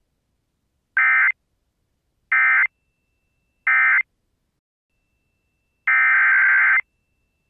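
Emergency Alert System SAME digital data bursts, shrill warbling modem-like tones. Three short identical bursts about a second apart mark the end of message for the warning just read. A longer burst near the end begins the header of the next alert.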